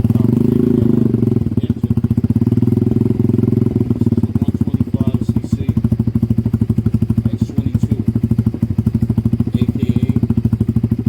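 Venom X22 motorcycle's carbureted single-cylinder engine exhausting through an aftermarket slip-on muffler. It is revved briefly at the start, then settles into a steady idle with an even exhaust beat.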